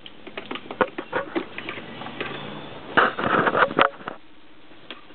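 Irregular clicks and clinks of hand tools and bolts against metal parts while a bike is being unbolted, with a dense flurry of rattling clicks about three seconds in.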